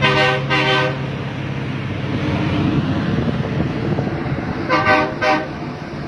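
Truck horn sounding two double toots, one pair at the start and another about five seconds in, over a steady rush of engine and road noise.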